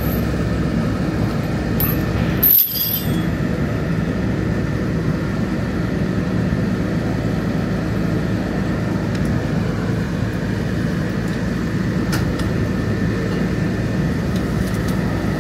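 Tow truck engine running steadily while it winches a crashed box truck. A brief sharp noise about two and a half seconds in.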